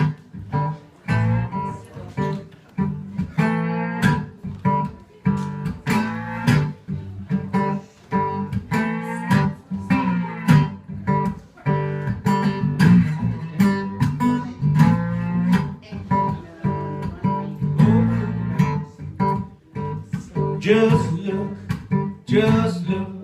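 Acoustic guitar in open G tuning playing a country blues instrumental intro, picked and strummed in a steady rhythm.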